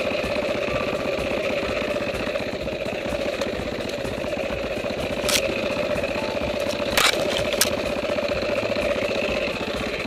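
Dirt bike's single-cylinder engine running steadily at low throttle while riding a bush trail, with a few sharp clacks about halfway through.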